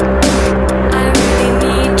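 Electronic music with a heavy bass, held synth notes and a steady drum beat.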